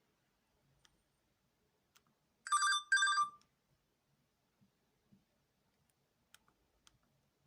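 LG-S310 button mobile phone's speaker playing a short electronic ring tone: two brief beeps, one right after the other, about two and a half seconds in. A few faint clicks come before and after.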